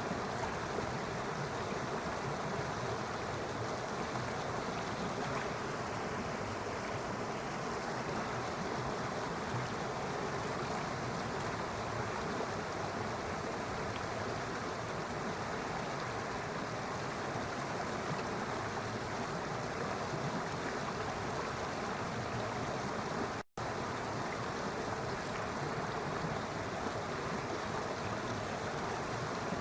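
Steady rushing of flowing stream water, unbroken except for a momentary dropout about two-thirds of the way through.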